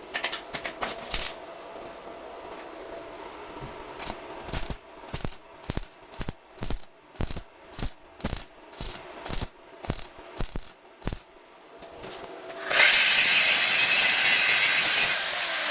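A series of sharp metallic clinks and taps, about one or two a second, from metal being handled and struck in a steel fabrication shop; about 13 s in a power tool starts and runs loudly and steadily.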